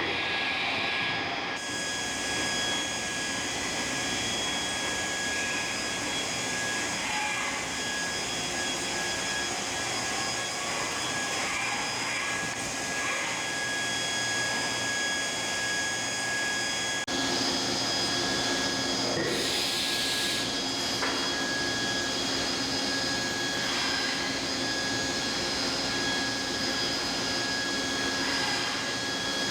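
Haas VF3D CNC vertical machining center running under power: a steady machine whine and rush with several fixed high tones. About seventeen seconds in, a lower hum joins suddenly and carries on.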